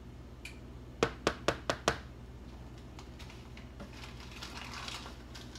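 A small plastic spoon tapped five times in quick succession against the rim of a plastic food container, knocking the cornstarch off, followed by a faint rustle.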